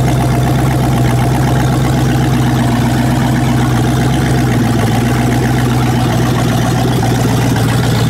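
Ford 302 small-block V8 idling steadily on an engine run-in stand, running with no exhaust system so it exhausts straight out of the manifolds.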